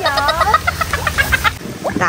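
Laughter: a falling vocal note breaking into a fast run of short, high 'ha-ha' pulses that stops about a second and a half in.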